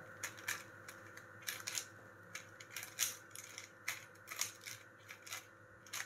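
4x4 Rubik's cube having its layers turned through an algorithm: faint, irregular clicks and snaps of the plastic pieces, a couple a second.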